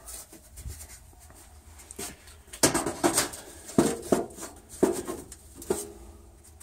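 Sheet-metal vent pipe and a new automatic vent damper knocking and scraping together as they are worked into place. It is quiet at first, then from about two and a half seconds in comes a string of six or so sharp clanks with rubbing in between.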